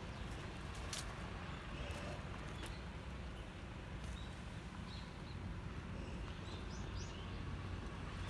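Outdoor ambience: a steady low rumble with faint, scattered bird chirps and a few light clicks.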